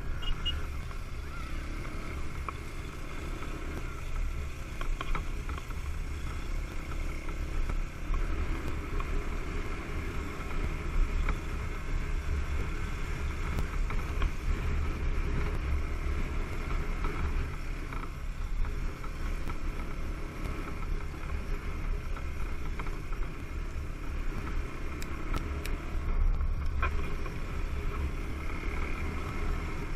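Dirt bike engine running under way, heard from the rider's helmet camera with heavy, steady wind rumble over the microphone.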